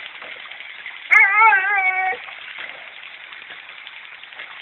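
A dog whining in distress: one high, wavering cry about a second long, starting about a second in. The dog is upset because its owner is underwater.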